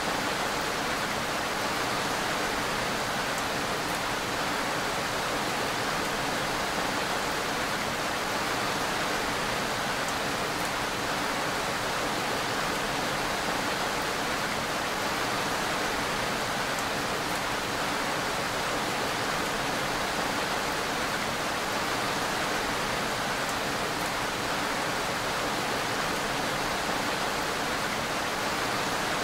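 Steady rain falling, an even hiss that holds at the same loudness throughout, with faint drop ticks in it.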